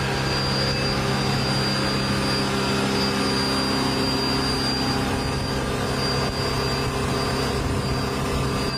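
Steady machine drone with a constant high-pitched whine, holding one unchanging pitch throughout.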